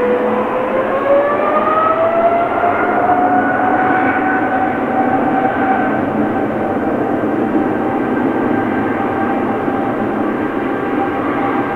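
Jet airliner engines running loud, with a whine that rises in pitch over the first few seconds and then holds steady over a broad roar: the engines spooling up to takeoff thrust.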